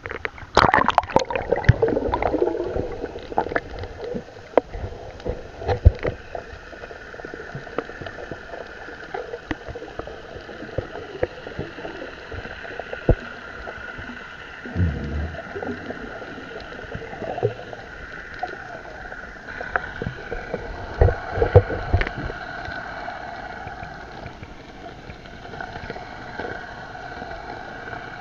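Water splashing and sloshing around the camera as it goes under the surface, then the muffled sound of being underwater in the sea: a steady hum with scattered small clicks, gurgles and a few low thumps.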